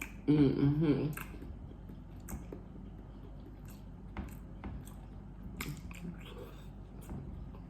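A person chewing food close to the microphone, with wet mouth clicks and smacks. A brief hummed vocal sound about a second long comes near the start.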